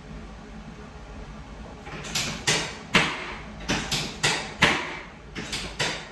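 About ten sharp clacks in quick, irregular succession, starting about two seconds in, each ringing briefly.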